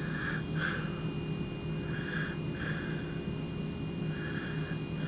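A steady low hum under soft, short puffs of breath close to the microphone, about six of them at uneven intervals.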